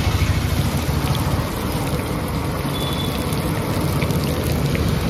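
Chicken pakodi deep-frying in a kadai of hot oil: the oil sizzles and bubbles steadily, over a low steady rumble.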